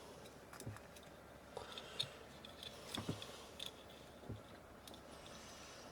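Faint, scattered clicks and taps of small plastic parts and tools being handled on a workbench, about half a dozen over the few seconds.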